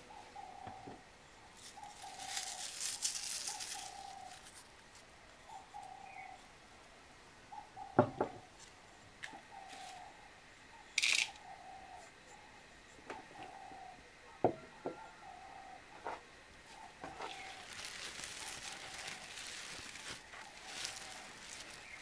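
Hands handling a linen cloth and dried herbs on a wooden table: soft rustling and crinkling, a few light knocks on the tabletop (the loudest about eight seconds in) and a brief sharp crackle near the middle. In the background, a bird calls a short low note over and over, about once a second.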